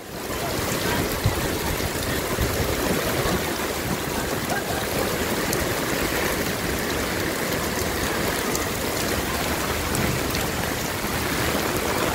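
Steady rush of fast-flowing floodwater across a street in heavy rain; the flood is rising quickly.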